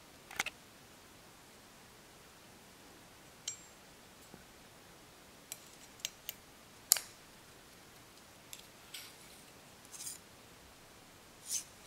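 Irregular small metallic clicks and ticks from an Extrema Ratio BD4 Lucky folding knife being handled and worked at its pivot, about ten in all, the sharpest about seven seconds in.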